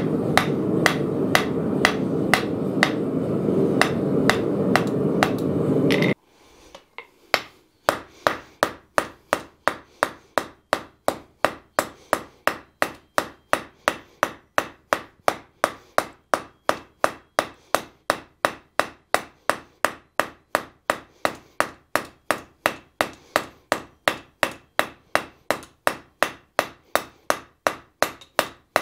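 Hand hammer striking a glowing bar of S7 tool steel held on the anvil, drawing out a small dimpling tool, in a steady rhythm of about three blows a second. A steady low rushing noise runs under the blows and stops abruptly about six seconds in. After a pause of under two seconds the hammering carries on.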